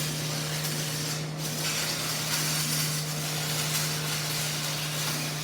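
Electric arc welding: a continuous crackling sizzle, with a steady low hum underneath.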